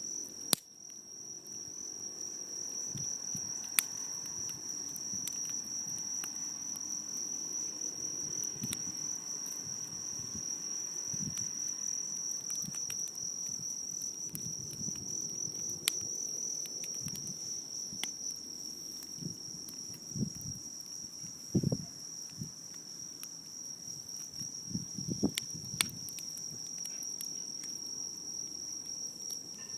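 Crickets chirring steadily in one unbroken high tone, with a few sharp pops and crackles from a burning driftwood fire.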